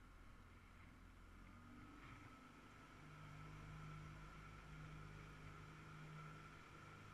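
Small boat's motor running steadily and faintly as the boat moves along, a low hum with a thin steady high whine above it.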